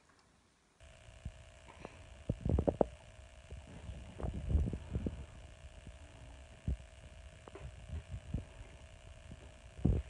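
A steady electrical hum with a thin constant tone starts about a second in, with irregular soft, low thumps and bumps over it, in clusters and then singly near the end.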